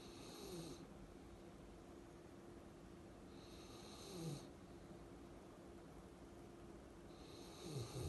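Giant Schnauzer snoring in its sleep: three snores about four seconds apart, each a short breathy rasp that falls in pitch.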